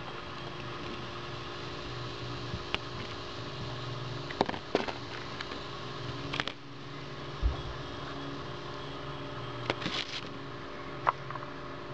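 Recovered expanded 9mm hollow-point bullets and a coin clicking lightly as a hand sets them down and moves them on a table, a handful of scattered sharp clicks, over a steady mechanical hum. A single low thump about halfway through.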